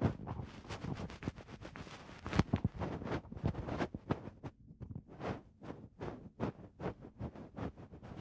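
Ear-cleaning bonten (the cotton-down fluff on the end of an ear pick) brushed and rubbed in the ear: quick scratchy rustling strokes, several a second.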